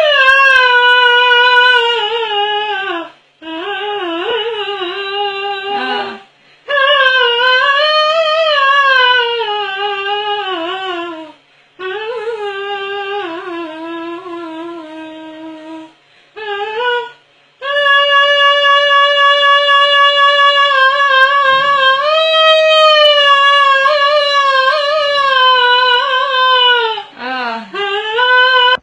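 A woman singing in a high voice, in several long phrases of held notes that slide down at the end of each phrase, with short breaks between them.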